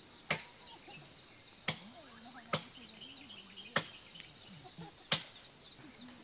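Insects, crickets or similar, trilling high-pitched in pulsing phrases, with five sharp knocks spaced irregularly about a second apart.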